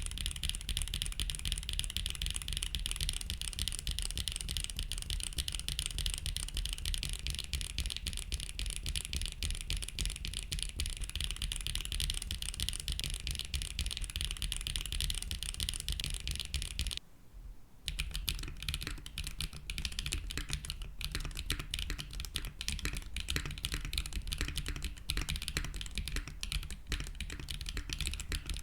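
Steady, fast typing on a custom keyboard with HMX T-Rex pre-lubed linear switches (PC top housing, PA66 bottom, POM stem) in an aluminium plate with no foam dampening, under GMK keycaps: a high-pitched, slightly resonant clacking of keys bottoming out. The typing stops briefly about two-thirds of the way through, then resumes.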